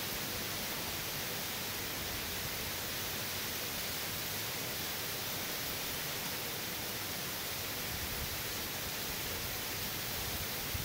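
Heavy wind-driven rain of a hurricane, a steady even hiss.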